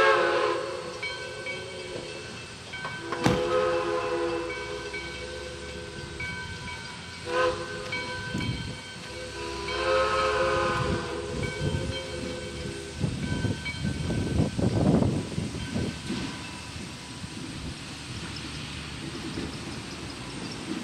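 Steam whistle of a 4-6-2 Pacific steam locomotive, several notes sounding together, blowing the grade-crossing signal: long, long, short, long. Afterwards come a rough rumbling and a steady hiss from the distant engine.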